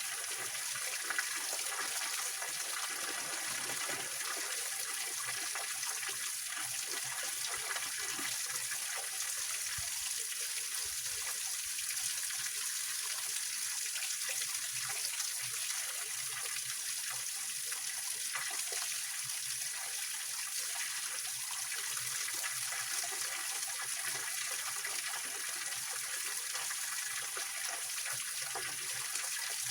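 Small waterfall in a rocky mountain stream: steady splashing and rushing of water.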